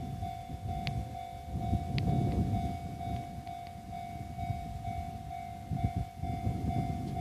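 Japanese level crossing warning bell ringing steadily, about two strikes a second, over a low rumble.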